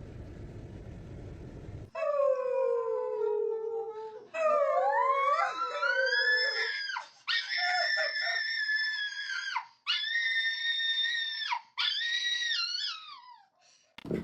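A dog howling: long wavering howls that slide down and up in pitch, then three long high held notes with short breaks between them. Low rumbling handling noise comes before the howls, about the first two seconds.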